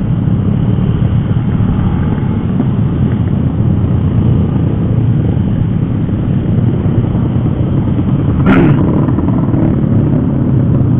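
Motorcycle under way: steady engine and wind rumble, with one brief sharp knock about eight and a half seconds in.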